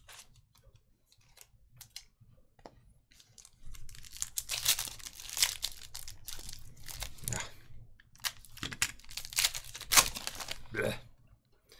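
Foil wrapper of a Panini Prizm basketball retail card pack crinkling and tearing as it is opened by hand, starting about three and a half seconds in. The loudest rip comes near the end.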